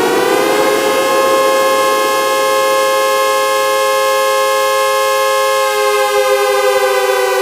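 Civil defense siren sounding a two-note chord: it finishes winding up about half a second in, holds a steady pitch, then begins to wind down near the end.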